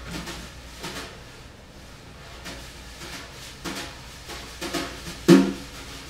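A metal pot scraped and struck with a pair of utensils: irregular knocks and scrapes, each with a brief ringing tone, the loudest about five seconds in.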